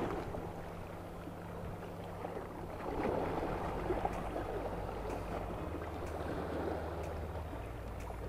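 Small sea waves washing and splashing against shoreline rocks, with a steady low hum underneath.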